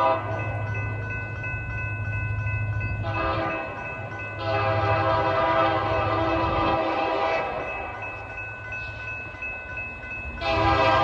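Diesel locomotive air horn sounding long blasts for the grade crossing: one ends as the sound begins, a second runs from about three seconds in to about seven, growing louder partway through, and a third starts near the end. A crossing signal bell rings steadily underneath.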